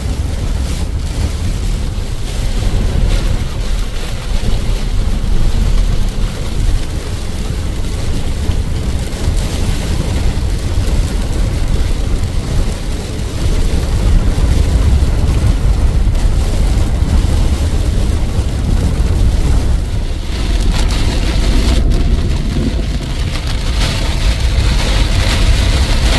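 Loud, steady rumbling noise of a heavy rainstorm, with wind buffeting the microphone.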